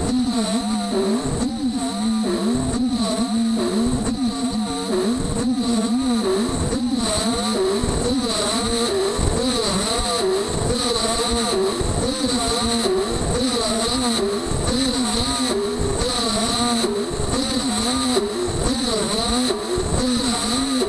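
Beaver HDZero CNC router milling an aluminium plate: motor tones rise and fall in pitch over and over as the axes move back and forth, over a steady high whine and a rough, irregular rattle from the cut.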